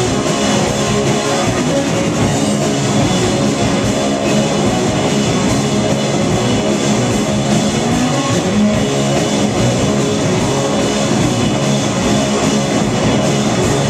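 Live rock band playing loudly and steadily: electric guitars, bass and drum kit together.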